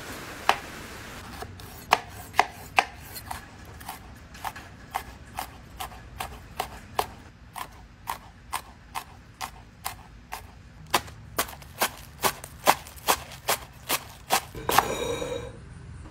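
A chef's knife chopping through pepper onto a cutting board in a steady series of sharp knocks, about two to three a second. A short scraping rush comes near the end.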